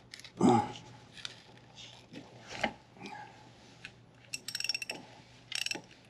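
Socket ratchet clicking in short quick runs as it turns a T50 Torx socket on the hydraulic belt-tensioner pulley bolt, with a louder knock of metal tools about half a second in.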